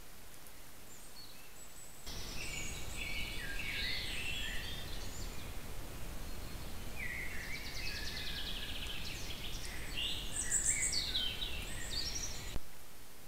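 Several songbirds singing together in a forest in spring, in short overlapping phrases and a fast trill, over the steady hiss of a trail camera's microphone. The singing starts abruptly about two seconds in and stops abruptly near the end.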